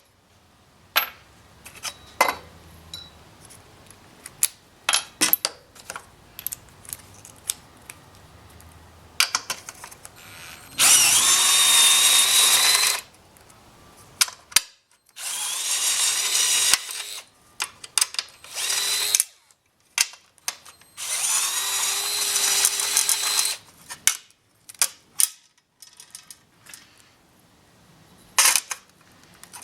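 Compact cordless screwdriver drilling into galvanized sheet metal in three runs of about two seconds each, its motor whining high, with short handling clicks and taps between the runs.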